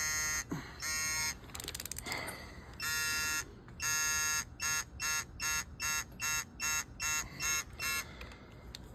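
Torque wrench beeping while the engine's head studs are tightened to spec: a few longer buzzy beeps, then shorter ones about three a second, with a short rattle of clicks about two seconds in.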